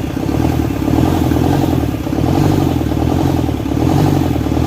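Isuzu 4HK1 four-cylinder diesel engine running with a knock, its speed lifting slightly twice.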